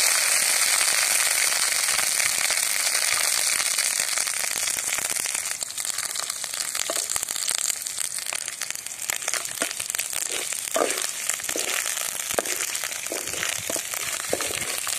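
Crushed garlic and ginger sizzling in hot oil with popped mustard seeds and cumin in a metal kadai. The sizzle is loudest at first, then slowly thins into scattered crackles and pops as the garlic fries.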